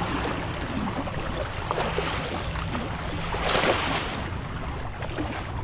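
A white sturgeon splashing at the surface beside the boat as it is unhooked, with one bigger splash about three and a half seconds in.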